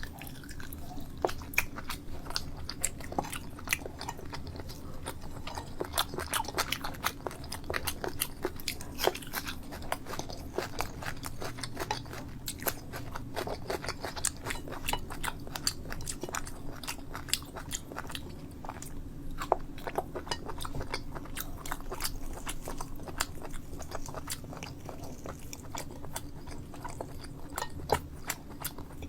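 A person chewing and eating food, with many irregular wet mouth clicks throughout, over a steady low hum.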